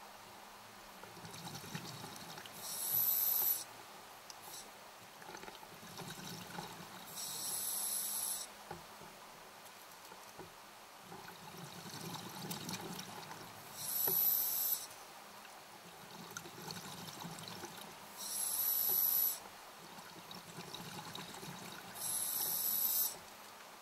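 Scuba diver breathing through a regulator underwater: five loud hissing breaths about a second long, roughly every four to five seconds, with softer bubbling and rushing between them.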